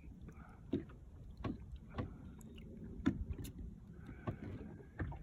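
Small boat at sea, with water lapping at the hull, a low rumble, and a handful of short knocks and clicks scattered through.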